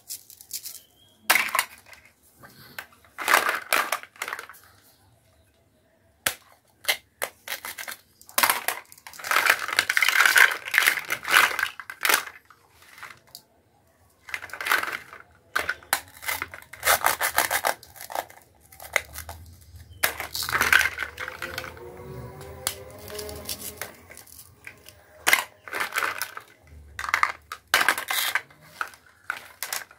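Plastic toy fruit and vegetable pieces knocking and clattering against each other and into a plastic basket as they are handled, in a run of sharp clicks with longer rustling, scraping stretches.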